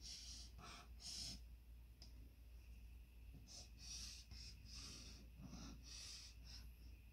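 Faint scratchy strokes of a felt-tip highlighter on paper as boxes are drawn around figures: a string of short swishes at irregular intervals.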